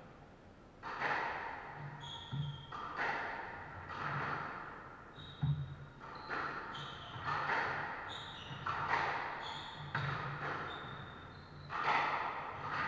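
Squash rally: the ball is struck by rackets and smacks off the court walls about once a second, each hit echoing in the enclosed court, with rubber-soled shoes squeaking on the wooden floor between hits.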